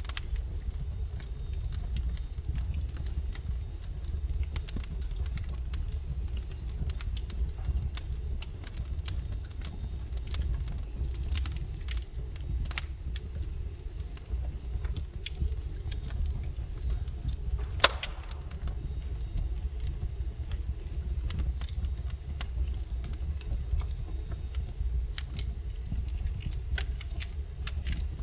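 Wood logs burning in a fireplace, crackling with irregular sharp pops over a low steady rumble. One louder pop comes about two-thirds of the way through.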